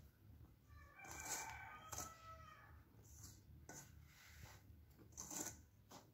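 Faint brushing swishes of a hand mixing dry flour and semolina in a stainless steel bowl. About a second in, a faint drawn-out call with several pitches rises in the background and lasts about two seconds.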